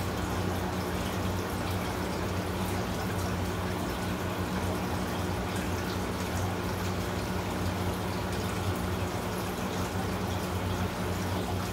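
Aquarium water running and bubbling steadily from the tank's filtration, with a low steady hum underneath.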